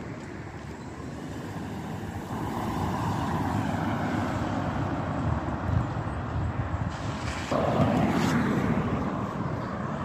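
Road traffic on a town street: cars going by, growing louder about two seconds in and again a few seconds later.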